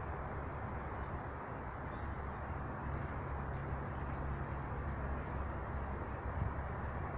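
Steady outdoor rumble with a low hum underneath, and a few faint, short, high bird chirps.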